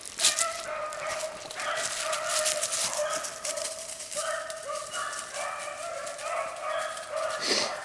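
A pack of rabbit-hunting dogs baying and yelping together without a break as they run a rabbit's trail: the dogs are on the scent.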